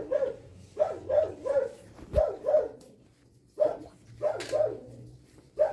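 An animal calling over and over: short pitched calls that bend in pitch, in quick groups of two or three, about one group a second.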